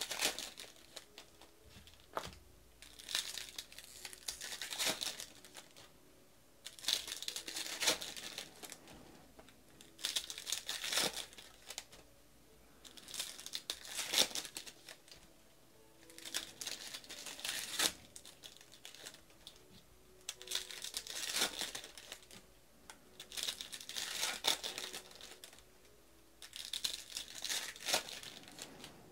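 Bowman baseball card pack wrappers crinkling and tearing as they are ripped open and handled, in bursts about every three seconds.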